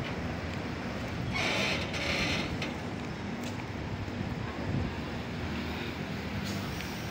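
Steady low vehicle engine rumble, with wind noise on the microphone and a brief hiss lasting about a second, starting about a second and a half in.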